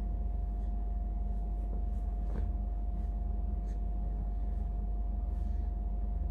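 A steady low hum with a thin, steady whine above it, and a few faint soft rustles, likely cloth being handled.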